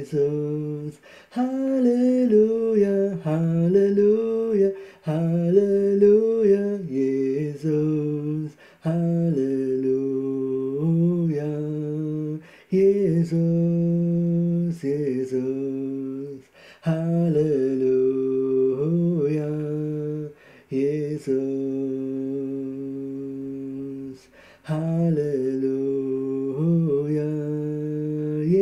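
A man singing a slow, unaccompanied worship melody without clear words. He holds long notes that slide between pitches, in phrases of about four seconds with short breaths between them.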